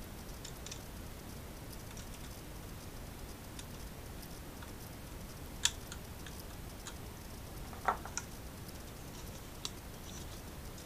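Small clicks and taps of a bare 3.5-inch hard drive and a metal drive tray being handled, with sharper clicks a little past the middle and a few lighter ones after, over a steady faint hiss.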